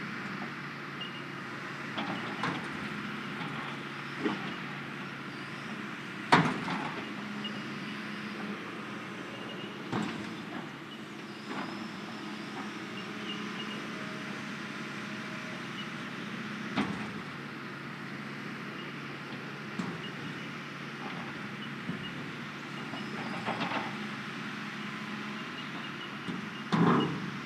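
Hitachi hydraulic excavator's diesel engine running steadily, with sharp metallic clanks at irregular intervals, the loudest about six seconds in and another just before the end.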